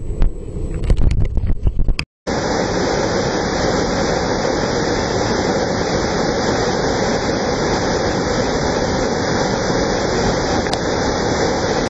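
Muffled low knocks and rumble from a camera held underwater. After a brief silence about two seconds in, a tall waterfall sets in: a steady, loud rush of falling water that does not change.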